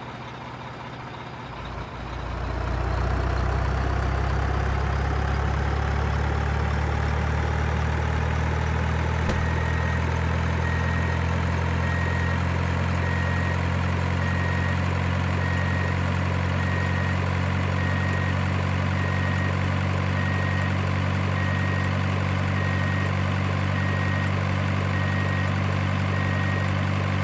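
Large truck engine coming up to speed about two seconds in, then idling steadily, with a faint high beep repeating at an even pace from about ten seconds in.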